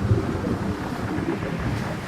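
Pier demolition sound effect: low, irregular rumbling and crackling over a steady wash of surf and wind noise, easing off near the end.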